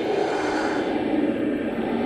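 Scary ghostly breath sound effect: a steady, breathy hiss, mostly low and muffled, whose upper part fades about a second in as if between breaths.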